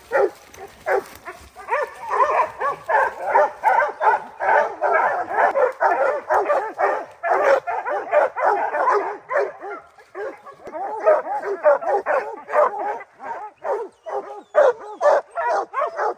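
Bear hounds barking treed at a black bear: fast, overlapping barks from several dogs, with some higher yips mixed in.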